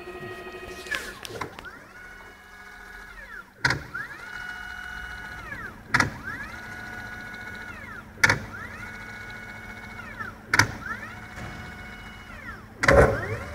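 CNC machine's axis motors whining through repeated moves, the pitch rising as they speed up, holding, then falling as they slow. Each move ends in a loud short knock as the motors decelerate, five in all about two seconds apart: an unwanted deceleration noise whose cause the owner cannot find.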